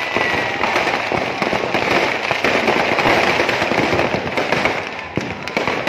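Firecrackers packed inside a burning Ravana effigy going off in a dense, rapid crackle, heaviest in the middle and thinning out near the end, with a few sharper bangs.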